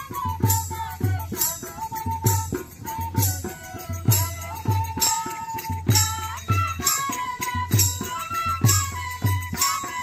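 Bodo folk music for the Bagurumba dance: a high wavering melody over a steady drum beat, a little under two strokes a second, with a bright cymbal or rattle splash on many beats.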